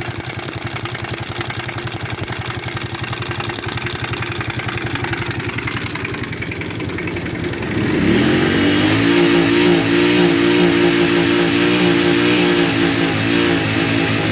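50cc Chinese motorcycle's four-stroke engine idling with a rapid knocking rattle, then revved up about eight seconds in and held at higher revs before easing back near the end. The knock comes from a worn cam chain whose tensioner no longer takes up the slack.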